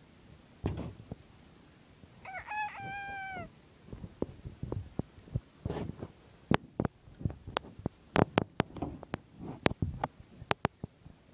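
Bantam rooster crowing once, about two seconds in: a short crow of a few quick notes ending in a held note that drops slightly in pitch. After it comes a run of sharp clicks and knocks, several a second.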